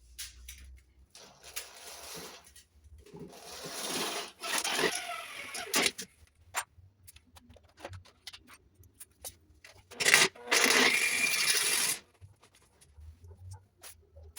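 Power drill driving self-drilling screws into thin sheet metal: short whirring runs near the start and a steady two-second run about ten seconds in, with sharp clicks and knocks from handling the metal in between.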